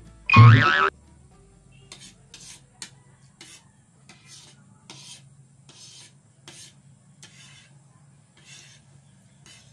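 Metal spoon and fork scraping on a ceramic plate as food is scooped up, in short scrapes roughly twice a second. About half a second in there is a brief, much louder sound with a wavering pitch.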